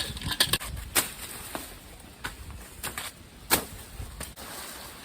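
A bolo machete with a dull blade hacking at overgrown brush and weeds: about seven sharp chopping strikes at an uneven pace, roughly one every two-thirds of a second, the loudest about three and a half seconds in.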